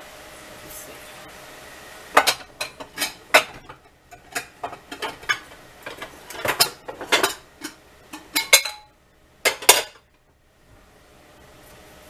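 Kitchen dishes and utensils clinking and knocking together as a bowl for mixing sauce is fetched: a run of sharp clatters starting about two seconds in, ending with two last knocks near ten seconds.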